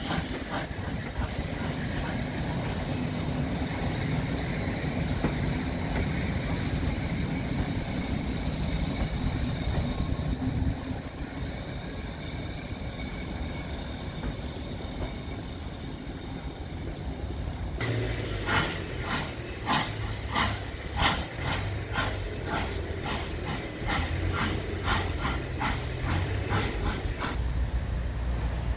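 Steam-hauled passenger train of the Ol49 locomotive moving on the track: a steady rumble, then, from about two-thirds of the way in, a regular beat of about two knocks a second.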